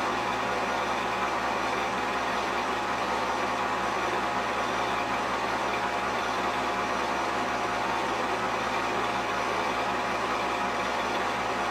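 Steady whir and hum of a film projector running, with no changes or separate events; the usual soundtrack of a silent 8mm home movie transferred by projection.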